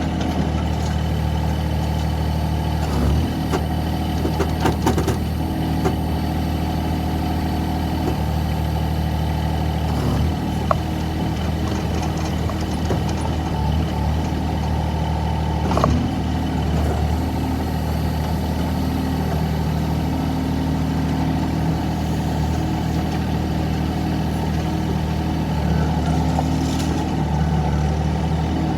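Excavator engine running steadily, with a few short knocks and clanks, a cluster a few seconds in and single ones about ten and sixteen seconds in.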